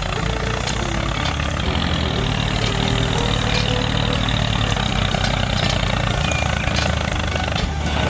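Tractor engine running steadily, a continuous low drone with faint clicking on top.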